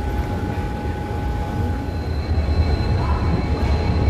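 Darbhanga Express passenger train running on the rails just after departure: a steady low rumble with faint, steady high whines. A higher whine joins about halfway through as the rumble grows a little louder.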